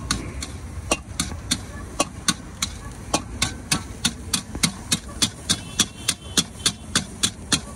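Metal spatula striking and scraping a large wok as fried rice is stir-fried, a regular clanking of about three strikes a second over a low steady rumble.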